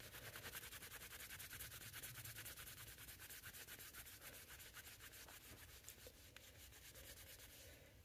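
A cloth rubbing quickly back and forth over the Cellidor plastic scales of a Swiss Army knife, buffing off polishing compound: a faint, fast, even rubbing that fades out near the end.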